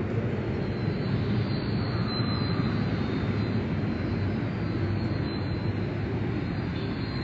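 Steady low rumble of a car heard from inside the cabin: engine and running noise with no breaks or sudden sounds.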